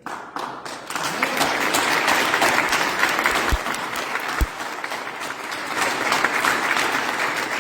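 An audience applauding: many hands clapping, building quickly at the start and holding steady, with two brief low thumps midway.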